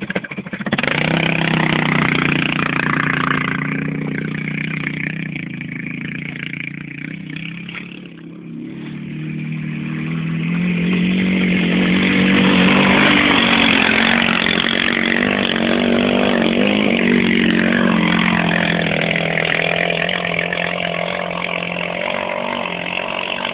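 ATV engine running under throttle, its pitch wavering as the rider works it. It drops back and quietens about eight seconds in, then revs up again and holds loud for several seconds.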